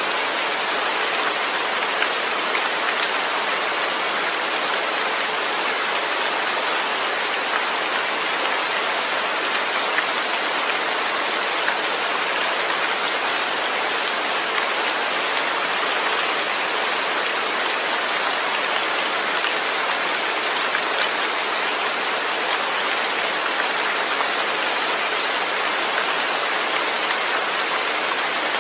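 Steady rain falling: a dense, even hiss of drops with faint individual ticks, and no thunder.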